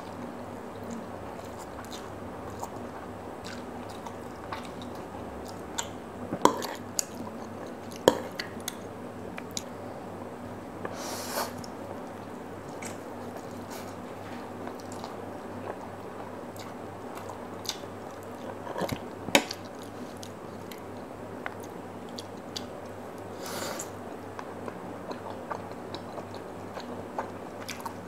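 Close-up eating sounds: instant noodles being slurped and chewed, with repeated small mouth clicks. A few loud sharp clicks come from the metal fork against the plate.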